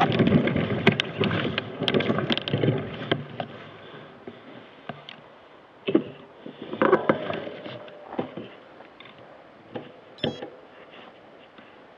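Mountain bike rattling and clattering over a rocky trail for the first few seconds, then slowing to a stop, leaving only occasional knocks and scrapes and a brief squeak near the end.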